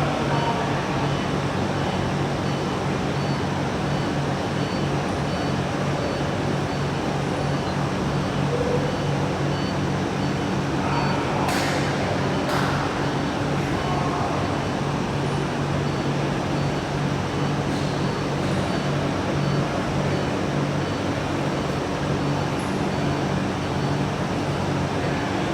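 Heavy truck's diesel engine idling steadily, with two sharp clicks about halfway through.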